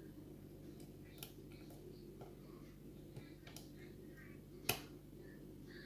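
Faint, scattered small clicks and ticks of a homemade lock pick working the pin stack while a thick tension tool holds the plug under clockwise turning pressure, with one sharper click near the end. The clicks come from pins binding and clicking out during single-pin picking.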